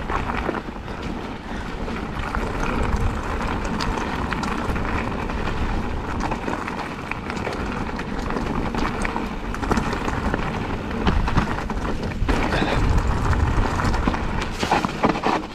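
Specialized Turbo Levo e-mountain bike riding fast down a rough trail, with tyres rolling and the bike rattling, many small clicks and knocks. Wind rumbles on the helmet-mounted microphone throughout.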